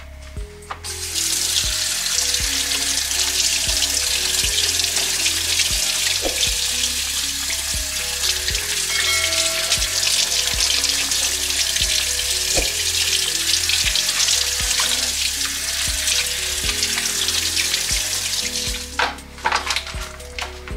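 Kitchen tap running onto a raw beef joint in a stainless steel sink: a steady splashing hiss that starts about a second in and stops near the end. Background music with a steady bass runs underneath.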